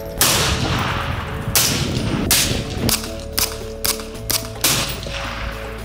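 A series of about eight sharp gunshots, each with a short ringing tail, spaced irregularly over steady background music.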